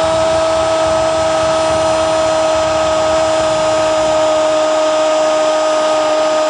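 A football commentator's long, unbroken goal cry, 'gooool', held at one steady high pitch.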